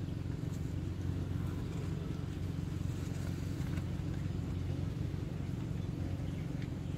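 Steady low mechanical hum and rumble, unchanging throughout.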